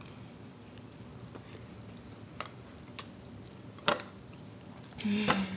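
A few light, scattered clicks and taps as a utensil and pretzels are handled at a bowl and a peanut butter jar, the loudest about four seconds in. A short hum of a voice follows near the end.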